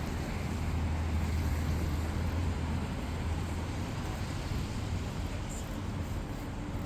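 City street traffic: a vehicle's low engine rumble, strongest in the first half and easing off after, over a steady hiss of traffic noise.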